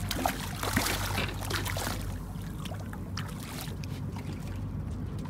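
A hooked red snapper splashing at the surface beside a boat hull and being lifted out of the water, with irregular splashing in the first couple of seconds that then dies down, over a steady low hum.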